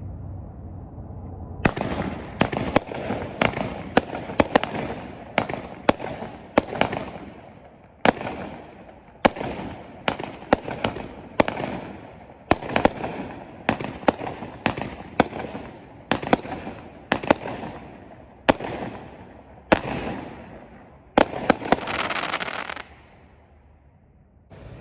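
A 200-gram consumer firework cake firing some twenty tailed shots in quick succession after a short hiss. Each shot is a sharp report followed by a fading crackle as the color palms and strobes break. Near the end a rapid burst of shots with loud crackling makes up the finale.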